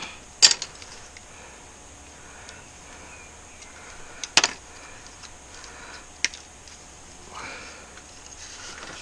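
A few sharp, isolated metallic clicks and clinks from a Honda Fireblade's front brake caliper and its pads being handled and pressed out by hand, with a soft rustle near the end.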